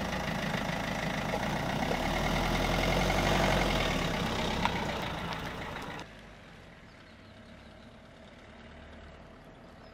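Renault Kangoo van's engine running as it pulls away from standstill, growing louder and then easing off as it drives off. About six seconds in it drops suddenly to a faint steady hum.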